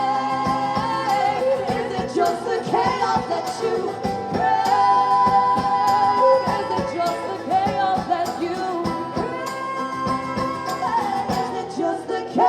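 Live music: two voices singing long held notes in harmony over strummed guitar.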